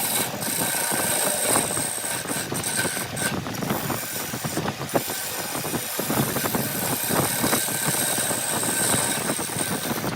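Woodworking machinery running steadily, a motor's drone mixed with constant rattling and clicking.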